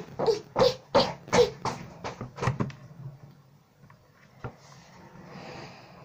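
A girl laughing in a run of about eight short bursts, then a single knock and a faint rustle.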